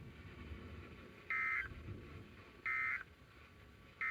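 Emergency Alert System end-of-message data bursts from NOAA Weather Radio: short two-tone buzzy digital chirps repeated about every 1.4 seconds, over faint radio hiss. They signal the end of the warning broadcast.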